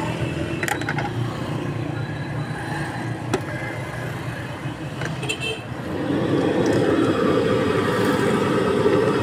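Busy street background of traffic rumble and voices, with a few sharp clicks of metal tools in the first few seconds. About six seconds in, a louder scraping rustle sets in as a metal spatula stirs freshly cut potato sticks in a plastic bucket.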